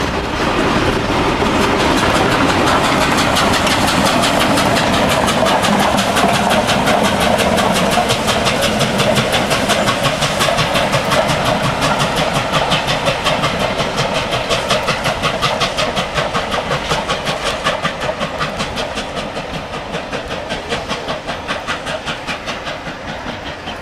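A train running past, its wheels clicking in a quick steady rhythm over the rail joints. The sound is loud at first and fades away through the second half as the train moves off.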